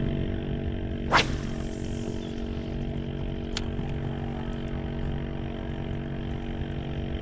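A fishing cast: a quick swish about a second in as a spinning rod whips a topwater lure out and line zips off the reel, followed by a single sharp click a couple of seconds later. A steady low hum runs underneath throughout.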